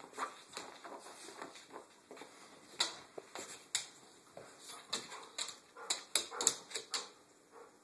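Two golden retrievers scuffling in play on a hardwood floor: a run of sharp clicks and taps from claws and paws on the wood, busiest between about three and seven seconds in.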